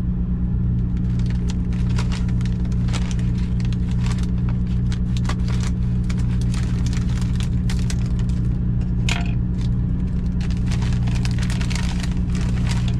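Plastic packaging of vacuum-packed ahi tuna steaks crinkling and crackling in short clicks as it is cut open and pulled apart by hand, over a steady low hum in the truck cab that is the loudest sound.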